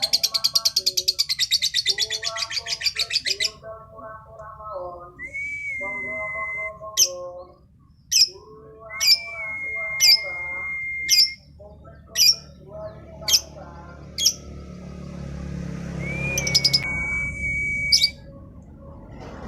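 Female lovebird chirping: a rapid, high chattering trill for the first three and a half seconds, then single sharp chirps scattered through the rest. Lower warbling calls sound underneath.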